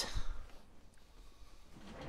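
Quiet handling of a computer keyboard assembly on a work mat: a soft low bump just after the start and a faint tick about a second in, over quiet room tone.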